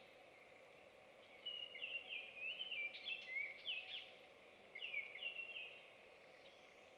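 A songbird singing: a phrase of quick, stepping notes starting about a second and a half in, then a shorter phrase about five seconds in, over faint steady background noise.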